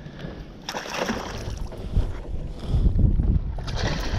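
Wind rumbling on the microphone over water noise at the side of a bass boat while a hooked bass is landed, with a rush of splashing about a second in.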